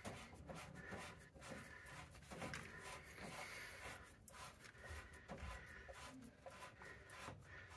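Near silence, with faint scratching and light handling noises from hands working on copper pipe fittings.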